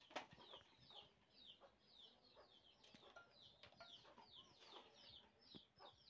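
Faint, continuous peeping of chicks: short, high chirps that fall in pitch, about three or four a second. A few sharp clicks and taps come from okra being handled and cut over a steel plate.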